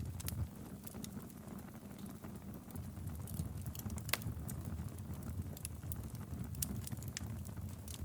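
Wood fire burning in a fireplace: a low steady rumble of the flames with scattered sharp crackles and pops from the burning logs, one louder crack about four seconds in.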